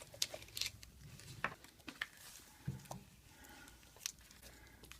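Faint handling noises of a parcel being unpacked: scattered light clicks and rustles of packaging.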